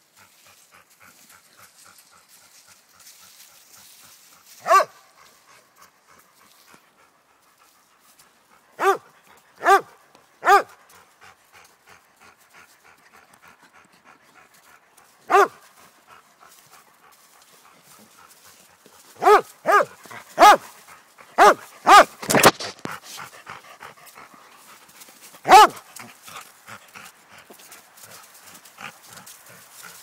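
A dog barking in short single barks, about a dozen in all: one about five seconds in, three in quick succession a few seconds later, a run of six close together past the middle, and a last one near the end. Faint panting between the barks.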